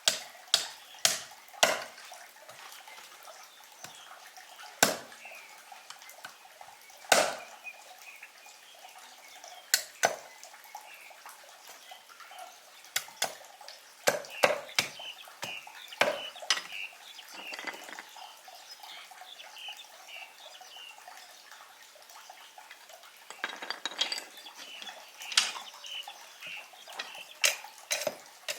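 Sharp, irregular knocks and clicks of hand work on wood or bamboo pieces while a primitive mousetrap is built. The loudest knock is about a quarter of the way in, and there is a longer scraping rustle near the end.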